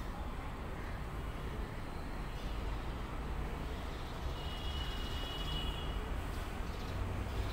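A steady low rumble, with a faint high-pitched tone lasting about a second and a half a little past halfway.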